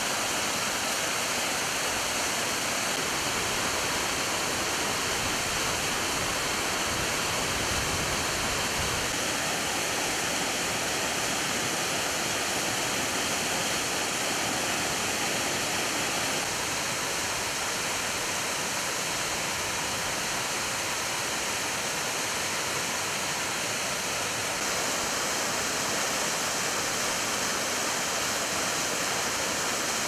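Waterfalls pouring down rock ledges: a steady, full rush of falling water, its tone shifting slightly a few times.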